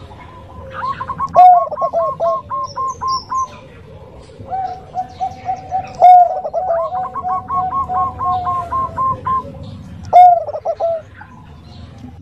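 Bangkok-type zebra dove (perkutut) cooing in three bouts of quick, rolling, repeated coo notes.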